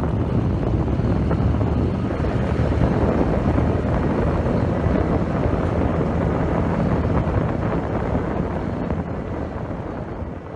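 Farm tractor engine running steadily under way, with wind on the microphone; the sound begins to fade out near the end.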